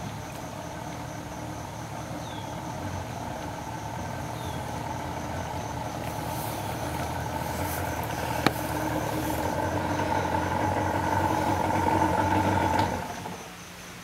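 An engine running steadily, slowly growing louder, with one sharp click about eight seconds in; it stops abruptly near the end.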